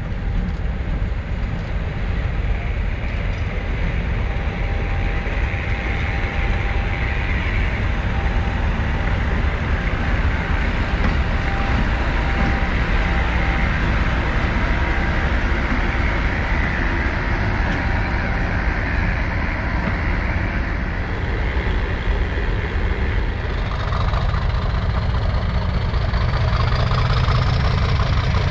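A heritage diesel locomotive's engine running steadily with a heavy low rumble. Over the last few seconds a high whine rises in pitch as the engine grows slightly louder.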